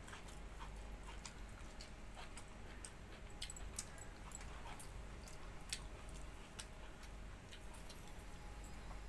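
Close-up mouth sounds of someone eating by hand: chewing fried potato and pointed gourd, with scattered short wet clicks and smacks.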